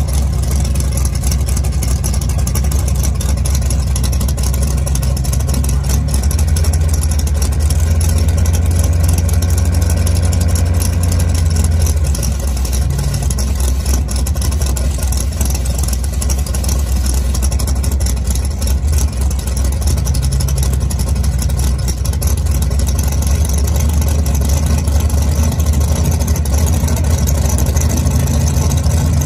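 Ford Mustang drag car's engine idling steadily at the starting line, a little louder for a few seconds about a quarter of the way in.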